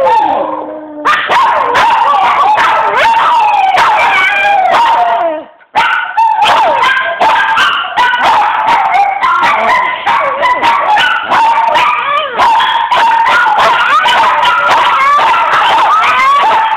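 Small long-haired dog howling and yipping in a continuous string of high, wavering cries, with a short break about five and a half seconds in.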